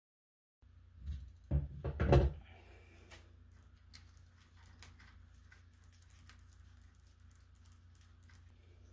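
Gloved hands working thermostat wires and plastic twist-on wire connectors: a few heavy thumps and rustles about a second in, then a run of small clicks and rustles over a low steady hum.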